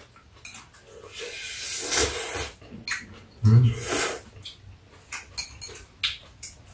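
Ramen noodles slurped off chopsticks, two long slurps about two and four seconds in, followed by light clicks of chopsticks against bowls near the end.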